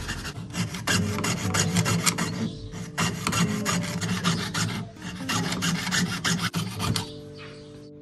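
Jeweller's piercing saw cutting through a 50 euro cent coin of Nordic gold alloy, in rapid rasping back-and-forth strokes. It pauses briefly twice and stops about seven seconds in, as the centre disc is cut free.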